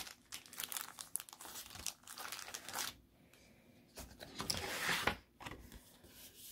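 Crinkly packaging being handled as stationery items are taken out: irregular short rustles, a brief pause, then a longer, louder crinkle about four seconds in.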